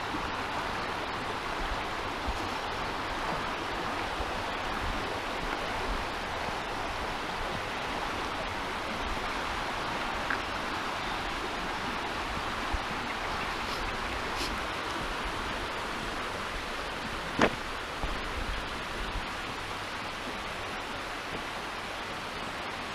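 Steady rushing of a shallow, fast-flowing stream over stones, with a single sharp click about three-quarters of the way through.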